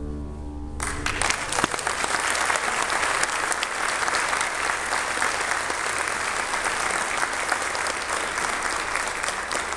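The final held chord of a Yamaha YAS-62 alto saxophone and piano ends just under a second in, and an audience breaks into applause.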